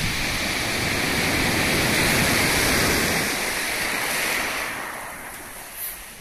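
Rough surf breaking and washing up a pebble beach, a steady rushing that swells to its loudest around the middle and then fades near the end.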